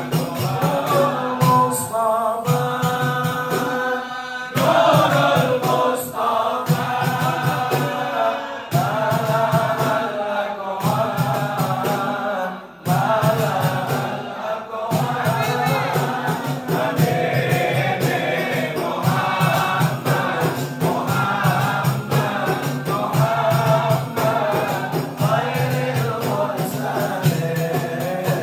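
Islamic devotional chanting (sholawat): men's voices singing together in a choir-like chant, with a steady musical backing underneath.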